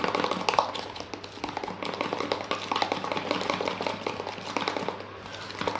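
A small stirrer clicking and scraping against the inside of a stainless steel tumbler as white mixing material is stirred, in quick irregular taps throughout.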